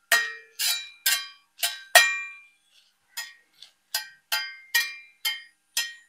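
Steel spatula clinking against a metal pan while stirring dried red chillies as they dry-roast. About a dozen ringing metallic clinks, roughly two a second, with a short pause about two seconds in.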